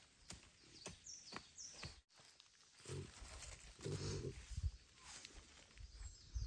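A pig grunting and snuffling as it roots with its snout in loose soil and dry bamboo leaves, with two heavier low grunts about three and four seconds in.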